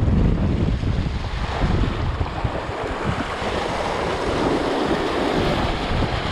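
Sea waves breaking and washing over shoreline rocks, a steady hiss of surf that swells in the middle. Wind buffets the microphone with a low rumble, strongest in the first second or two.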